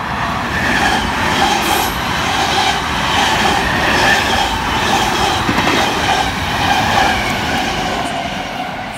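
V-set double-deck electric intercity train running through at speed close by: a rushing rumble of wheels on rails with repeated clatter over the rail joints and a high steady whine. The noise swells in the first second and eases off near the end.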